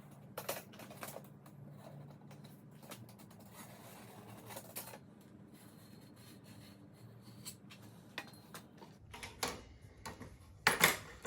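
Scattered light clicks and taps of hand tools on a small aluminium workpiece being measured and marked out, with a sharper knock near the end.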